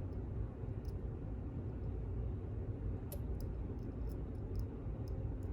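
Faint, irregular small clicks and ticks of a pick working the pins inside a pin-in-pin cylinder lock, over a steady low background hum.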